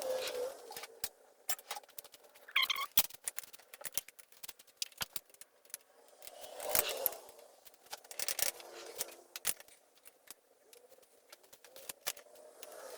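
Irregular light metallic clicks, taps and clinks of hand tools and small engine parts being handled during a dirt bike engine teardown.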